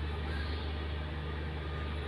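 Sliced onions sizzling as they fry in oil with cumin seeds, over a steady low hum.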